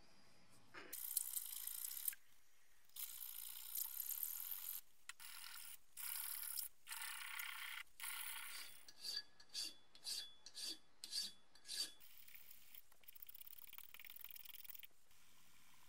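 Flat hand file rasping across the steel jaw of a Stilson pipe wrench held in a bench vise, smoothing out pitting and wear marks. It begins with long strokes of one to two seconds each. Past the middle comes a run of about seven short, quick strokes, and the strokes are softer near the end.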